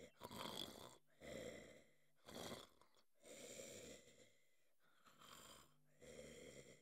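Soft snoring of a sleeping cartoon frog: a run of about six snores in and out, roughly a second apart.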